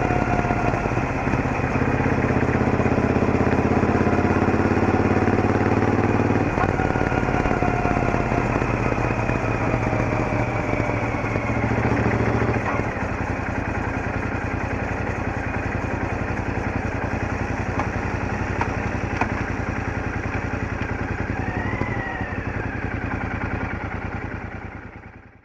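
Royal Enfield Interceptor 650's 648 cc parallel-twin engine running through its stock exhaust at low road speed, with a thin gear whine that slides down in pitch. The engine note changes about six and a half and again about twelve and a half seconds in, running quieter after the second change, and fades out at the very end.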